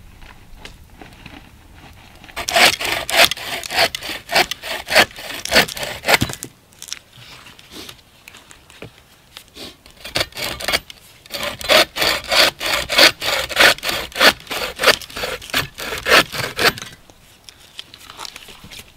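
Hand bow saw cutting through a dead branch: two runs of steady back-and-forth rasping strokes, about three a second, with a pause between them. The second run is the longer one.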